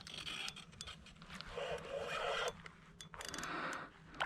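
Fishing reel winding in line in three short spurts, with a few sharp clicks, as an angler fights a hooked redfish.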